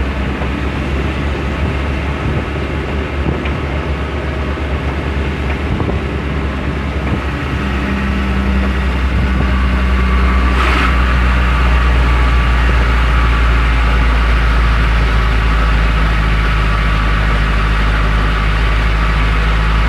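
Truck engine running steadily while driving, a deep low rumble that grows slightly louder partway through, with one brief knock about ten seconds in.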